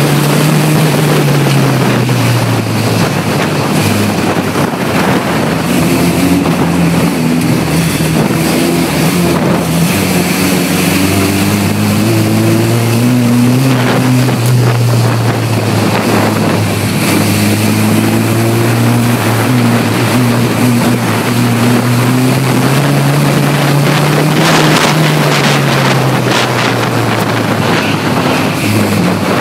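Engine of a stripped-out banger racing car heard from inside the cabin, working hard, its pitch rising and falling every few seconds as it accelerates and lifts off around the track, over heavy road and wind noise. A run of sharp knocks comes near the end.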